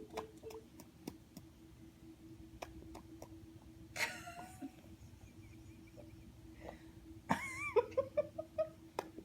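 A young child making funny non-speech vocal noises: a short squeal about four seconds in, then a wavering squeal followed by a quick string of short rising sounds near the end.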